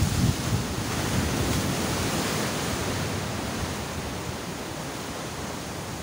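Ocean surf breaking on jagged coastal rocks: a wave crashes and throws up spray as it begins, then the wash of the surf goes on steadily, slowly easing. Wind buffets the microphone with low rumbles.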